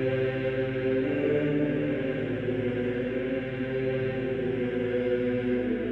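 Background music of several long-held tones sounding together, steady throughout.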